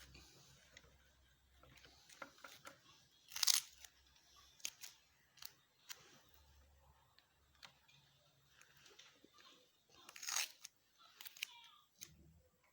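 Scattered small clicks and handling noises, with two louder short rasping sounds about three and a half and ten seconds in.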